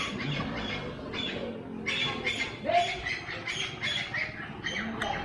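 A bird calling over and over, about three short calls a second.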